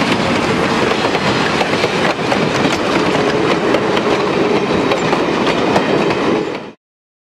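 Train passing close by, its wheels clicking over the rail joints in a steady clatter; the sound cuts off abruptly near the end.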